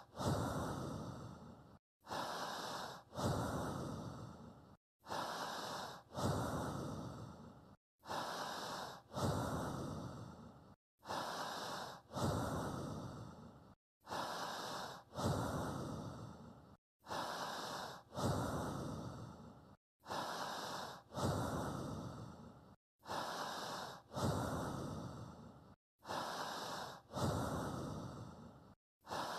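A person's breathing in a slow, even rhythm, one breath cycle about every three seconds: a short breath, then a longer, louder one that fades away, with a short silence before the next.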